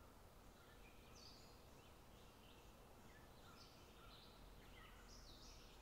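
Near silence: quiet room tone with faint birdsong, a handful of short chirps scattered through it.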